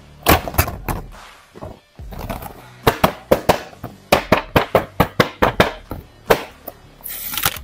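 Plastic toy packaging crinkling and crackling as a carded action figure is handled, a rapid run of sharp crackles and clicks, over background music.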